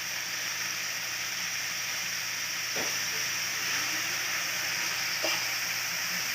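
Food frying in a pan, a steady sizzle, with two light knocks about three and five seconds in.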